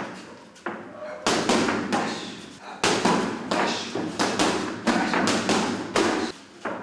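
Boxing gloves smacking into a trainer's hand-held pads in quick punch combinations, about a dozen sharp hits coming in flurries, each echoing briefly.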